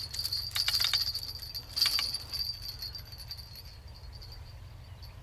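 Light metallic clicks and jingling from fishing tackle as a freshly caught crucian carp is handled on the line, strongest in the first couple of seconds, with a steady high-pitched whine behind it.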